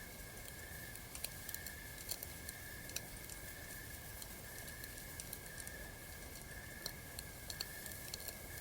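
Campfire crackling: irregular sharp snaps and pops over a low hiss. Behind it, a steady high-pitched hum swells and fades about once a second.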